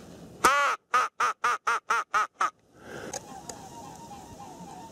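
A duck's quack series: one long quack followed by seven short, evenly spaced quacks, about four a second, in the pattern of a mallard hen's call.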